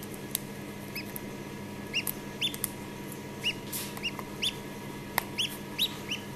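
Khaki Campbell duckling peeping from inside its half-opened egg as it hatches: about nine short, high peeps that each rise and fall in pitch. Light clicks and crackles of eggshell are heard as fingers pick it away.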